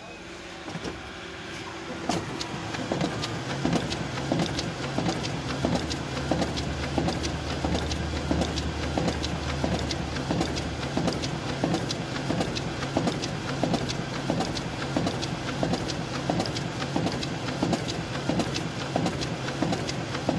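Digital duplicator (stencil printing machine) printing sheets in gold ink, a rapid, even run of clacks as each sheet feeds through and lands on the output tray. It comes up to speed over the first couple of seconds, then runs steadily at about three clacks a second.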